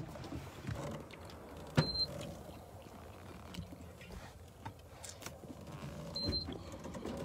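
Clothing rustle and phone handling noise as a person climbs down out of a truck cab, with a sharp click a little under two seconds in and a dull knock about six seconds in.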